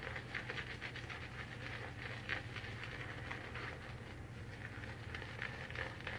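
Shaving brush whipping soap lather in a small jar: a steady stream of quick, wet, crackling swishes.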